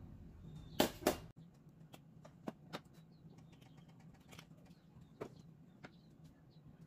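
Kitchen handling sounds: two sharp knocks about a second in, then scattered light clicks and taps of containers and utensils being moved around the stovetop.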